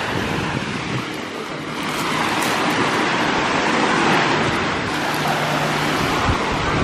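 Small waves washing onto a pebble beach: a steady rushing noise, with a low steady hum coming in about two seconds in and again near the end.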